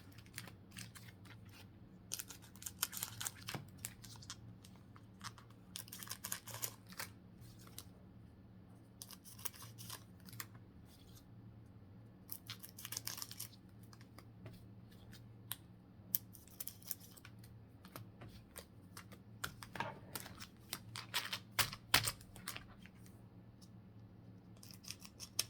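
Pokémon trading card booster packs being opened and the cards handled: soft, scattered clicks, flicks and rustles of card stock and foil wrappers.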